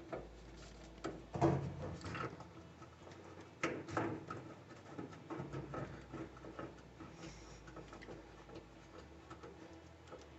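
Irregular light clicks and knocks of a hand tool tightening the bolts that hold a washer's lid switch assembly, thinning out after about seven seconds.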